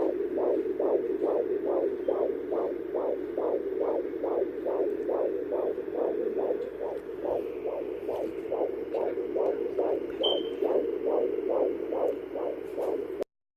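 Home fetal Doppler's speaker playing a baby's heartbeat: a fast, even pulse of about two and a half beats a second, around 150 a minute, over a steady hum. It cuts off abruptly just before the end.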